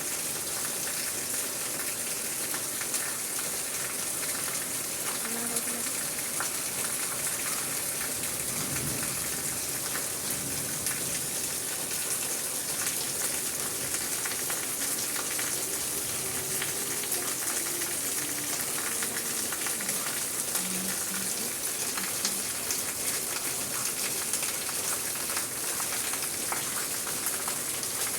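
Steady rain falling, a dense, even hiss of drops with many small ticks from individual drops landing. A few faint short tones sound briefly in the background.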